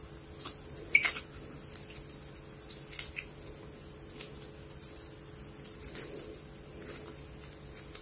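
Slime being squeezed and poked, giving irregular small clicks, pops and squelches, the sharpest about a second in.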